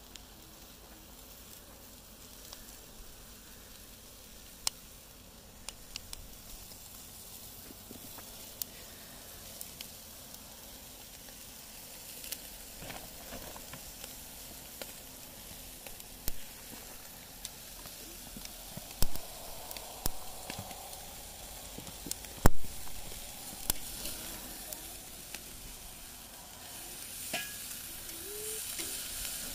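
Food sizzling on a hot grill: a steady hiss with scattered sharp clicks and knocks, two of them louder at about two-thirds and three-quarters of the way through.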